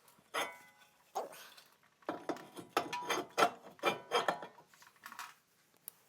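Hand tool scraping and clinking on bare metal, cleaning rust and gunk off the wheel hub. There is a sharp clank about half a second in, then a run of quick scraping strokes from about two seconds in.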